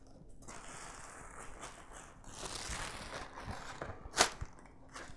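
Plastic wrapping rustling and crinkling as small wrapped packages are lifted out of a cardboard box, with one short, sharper sound about four seconds in.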